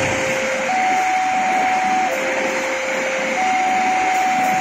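Railway level-crossing warning alarm sounding a slow two-tone signal, a higher and a lower tone taking turns about every 1.3 s, over the steady rush of passenger coaches rolling past on the rails.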